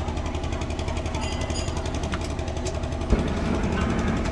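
An engine running steadily with a fast, even throb, and a low thump about three seconds in.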